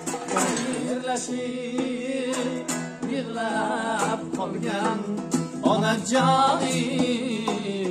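Music: a singing voice with a wavering, ornamented melody over instrumental accompaniment with sharp percussive strokes.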